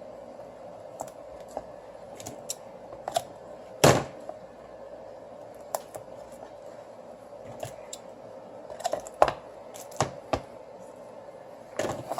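Scattered small clicks and snips of double-sided adhesive tape being handled and cut during a phone-glass repair, over a steady faint hum. The sharpest click comes about four seconds in, and a few more come close together near the end.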